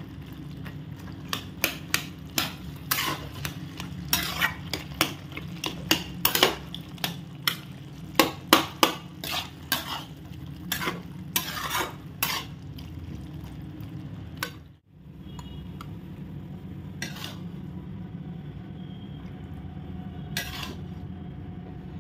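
Metal spatula scraping and knocking against a kadhai while stirring cooked pumpkin and radish curry, in quick repeated strokes for the first twelve seconds or so, over a steady low hiss. After a short break about fifteen seconds in, only a couple of single knocks are heard.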